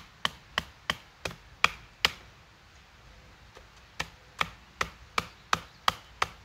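Sharp knocks of a baton striking the spine of an Esee Laser Strike knife to split a piece of firewood, about three strikes a second. The strikes stop for about two seconds in the middle, then start again.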